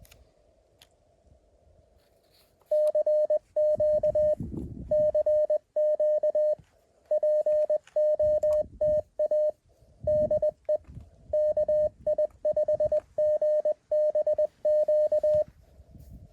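Morse code from a Mountain Topper QRP CW transceiver: a steady mid-pitched tone keyed in dots and dashes for about thirteen seconds, over faint receiver hiss that drops out while the code sounds.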